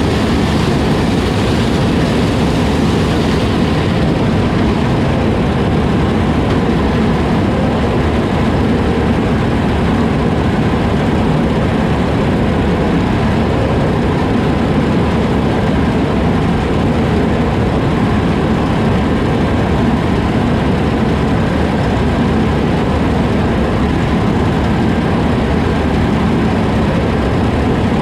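Large farm diesel engine running steadily, a constant heavy drone with no change in speed; the faint high hiss above it eases slightly about four seconds in.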